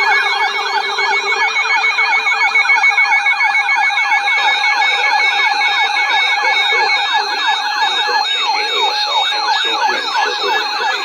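Emergency alert attention signal for a tornado alert: several overlapping siren-like tones sweeping rapidly up and down, several sweeps a second, with a pulsing high beep that stops about seven seconds in.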